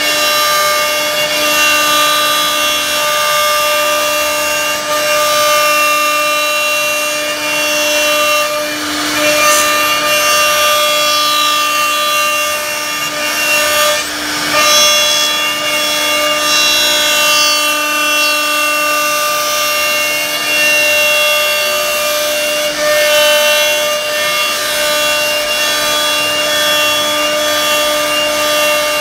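CNC router spindle whining steadily as its bit cuts a carved relief pattern into a wooden door panel, with the rough noise of the bit chewing through wood. The whine breaks briefly about halfway through, then carries on.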